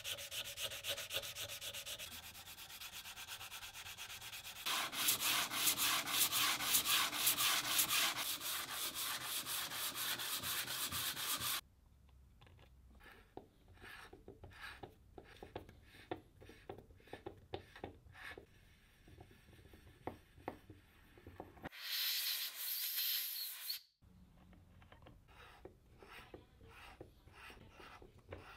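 Fast back-and-forth hand scrubbing and rubbing on the metal parts of an old brass oil lamp, getting louder for several seconds and then stopping abruptly. After it come quieter scattered taps and clicks, with one short hiss a couple of seconds long.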